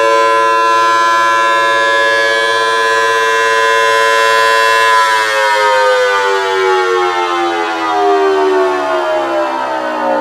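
Homemade miniature Thunderbolt-style rotating siren with a metal horn, sounding a loud steady chord of several tones while its horn turns, then winding down, the whole chord falling in pitch from about halfway through.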